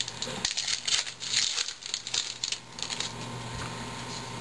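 A baseball card pack's wrapper being torn open and crinkled by hand, a quick run of crackles for about three seconds, then quieter handling of the cards.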